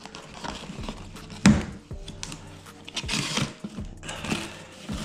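Cardboard box being opened and handled: flaps and inner packing rustling and scraping, with a sharp knock about one and a half seconds in.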